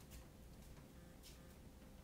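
Near silence: room tone with a faint steady hum and two faint brief swishes, one at the start and one a little past halfway.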